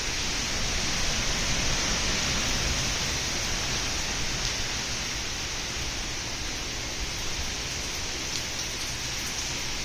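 Heavy tropical-storm rain falling steadily, a dense even hiss with wind.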